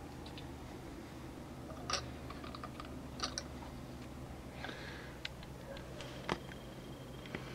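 Scattered light clicks and taps of plastic miniatures on round bases being handled and set down on a hard surface, the sharpest knock about six seconds in, over a steady low hum.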